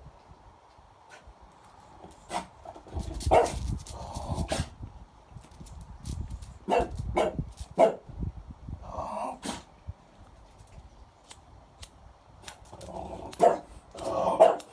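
French bulldog sneezing again and again: short, sharp sneezes in three clusters, with pauses of a second or more between them.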